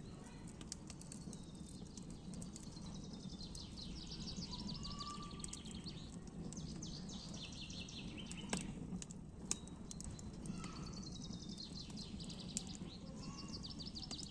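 Campfire crackling with a few sharp pops, under wild birds singing in repeated phrases of rapid high trilled notes.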